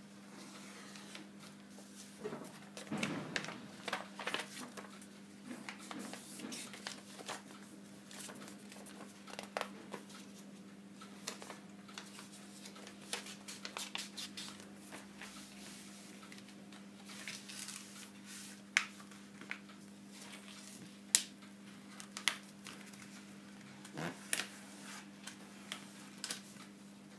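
Sheet of paper being folded and creased by hand: intermittent rustling with crisp clicks, a few of them sharp, over a steady low hum.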